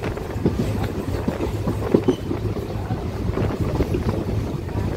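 Steady low rumble of a moving vehicle heard from inside, with irregular knocks and rattles.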